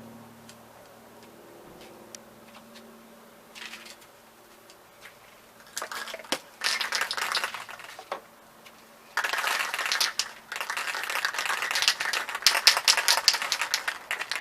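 Aerosol spray-paint can being shaken, its mixing ball rattling in short bursts at first and then steadily from about nine seconds in.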